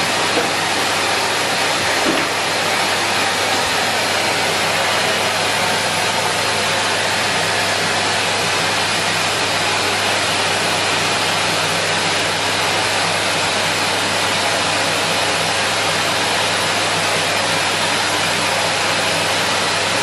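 A Numatic Henry cylinder vacuum cleaner running steadily: a constant rush of air through the hose over a low, even motor hum.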